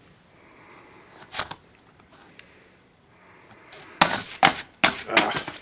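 Metal Slinky flipping down a staircase of stacked books. There is a light clink about a second and a half in, then a quick run of loud metallic clatters and jangles near the end as the coils land on each step.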